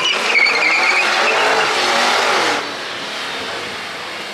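Cadillac CT5-V sedan doing a burnout: the engine revs hard while the tyres spin and squeal on the asphalt. The squealing is loudest in the first two and a half seconds, then drops back to a lower, steadier level.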